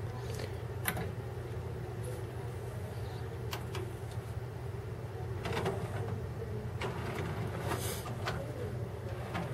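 Sony MHC-ZX30AV five-disc CD changer mechanism running on its newly replaced belts, whirring with a few irregular clicks as it moves the discs and loads one, over a steady low hum.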